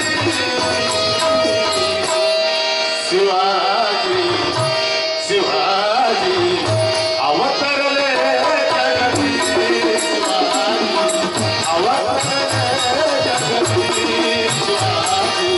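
Marathi devotional bhajan: a man singing with tabla drumming under a steady beat, a held steady tone from an accompanying instrument and a regular high ticking rhythm.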